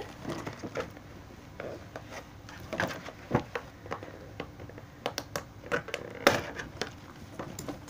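Hands working at a doll's cardboard-and-plastic packaging, freeing the thread that holds the doll's cape to the backing card: scattered rustles, scrapes and small clicks, with a run of sharper clicks about five to six seconds in.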